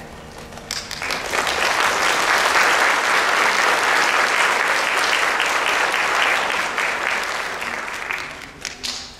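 Audience applauding after a children's chorus song, the clapping building about a second in and tapering off near the end.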